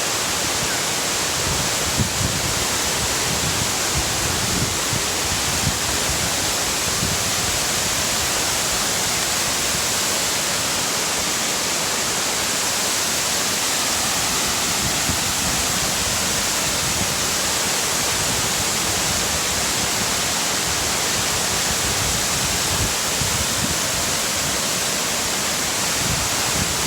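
Waterfall pouring: a steady, unbroken rush of falling water close by.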